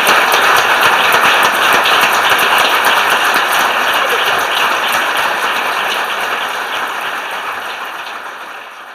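Audience applauding, many hands clapping densely together, slowly dying away over the last few seconds.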